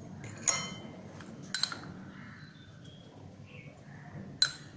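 A few light clinks of a metal spoon against a small ceramic bowl as chaat masala is spooned out: one about half a second in, a quick pair a second later and one more near the end, with quiet room sound between.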